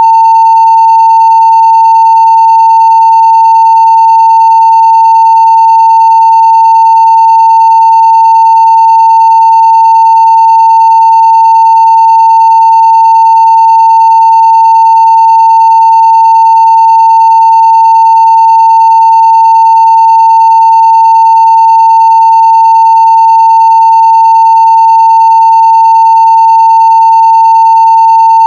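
Steady 900 Hz sine-wave test tone at full level (0 dB), one unbroken pitch.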